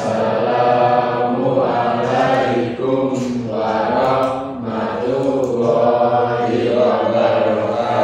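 A group of voices chanting together in unison, in long drawn-out notes.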